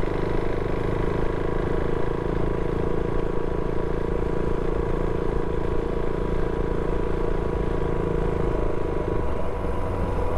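Motorcycle engine running steadily while being ridden, with road and wind rush.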